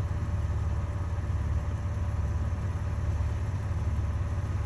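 Steady low rumble with faint, even hum tones above it, unchanging throughout.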